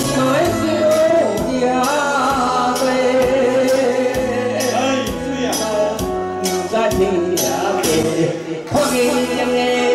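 A man singing into a microphone over an amplified karaoke backing track with a steady beat.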